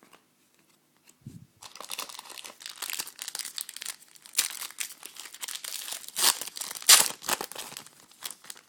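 A trading-card pack wrapper being torn open and crinkled, a run of dense rustling and crackling that starts about a second and a half in and peaks near the end.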